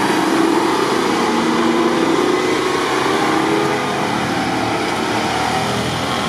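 GAZ-66 off-road truck's engine running under load as the truck drives past through mud. It gets slightly quieter over the last couple of seconds as the truck pulls away.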